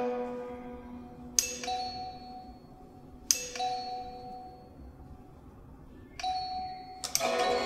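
Yangqin (Chinese hammered dulcimer) played by a bamboo-fingered robot: slow, unevenly spaced single notes struck on its metal strings, each ringing and slowly fading. Near the end several notes are struck together into a fuller chord.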